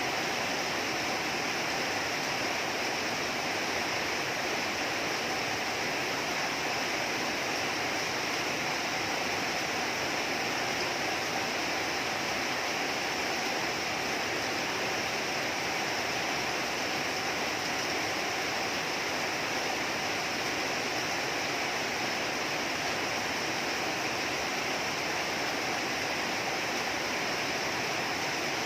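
Steady rain falling, an even continuous hiss of rain with no breaks.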